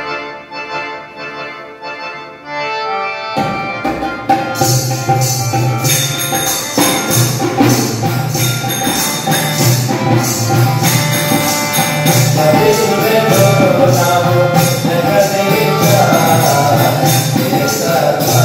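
Instrumental opening of a devotional bhajan: an electronic keyboard plays a sustained melody, joined about three seconds in by tabla and a jingling tambourine, the music growing louder.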